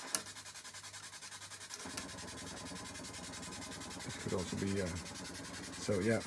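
White noise from a zener-diode noise circuit on a modular synth, switched rapidly back and forth between two diodes so the hiss pulses in a fast, even chopping rhythm, like a helicopter. The chopping gets faster about two seconds in, and a faint low hum runs under it. There is a single click just after the start.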